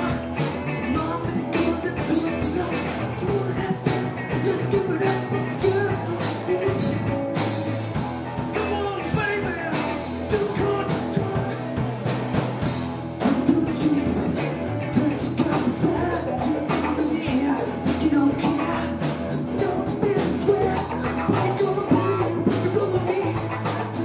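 Live rock band playing: two electric guitars, electric bass and drum kit, with steady drum and cymbal hits.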